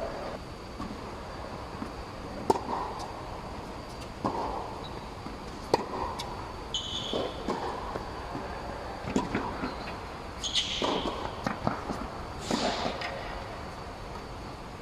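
Tennis rally on an indoor hard court: sharp racket-on-ball hits a few seconds apart, the sharpest about two and a half and five and a half seconds in, with brief high squeaks of sneakers on the court. The hits echo in the large dome.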